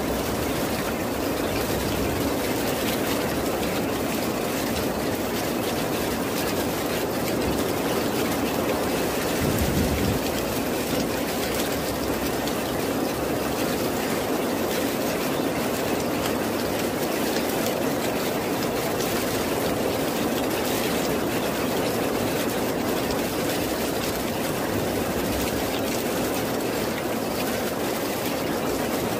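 Steady heavy rain, an even hiss weighted toward the low-middle range, swelling slightly about ten seconds in.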